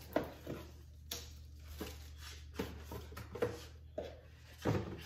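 Scattered light knocks and clicks of household items being handled, a louder knock near the end, over a steady low hum.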